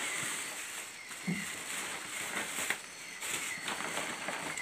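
Scattered rustles and small clicks of things being handled, over a steady high-pitched drone of night insects, with one soft low thump about a second in.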